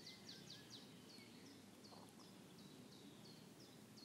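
Faint birdsong: a bird repeating short, high, falling chirps, roughly three a second, over a low steady background noise.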